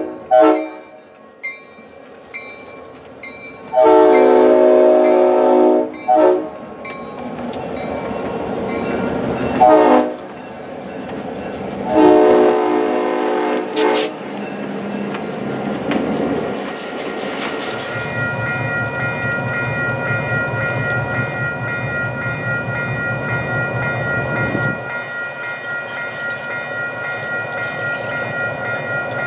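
Diesel locomotive air horn sounding a series of blasts, long and short, as at a road crossing, the last one about two seconds long. After that the diesel engines of the passing locomotives rumble steadily while a bell rings, the rumble dropping away about 25 seconds in.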